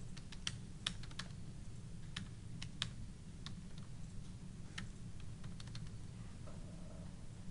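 Computer keyboard keys being typed in an irregular run of sharp clicks as numbers are entered into a calculator, over a steady low hum. The clicks thin out after about six seconds.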